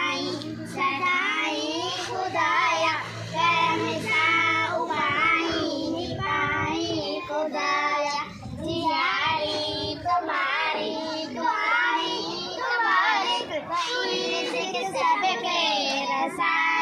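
Young girls singing a patriotic song together, their voices wavering with long held notes. A low steady hum sits under the singing for the first five seconds.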